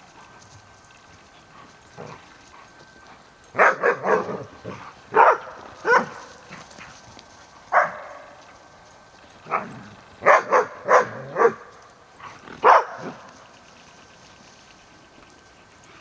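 Dog barking while two dogs chase each other in play: about a dozen short barks, some in quick runs of three or four, from about three and a half seconds in until about thirteen seconds in.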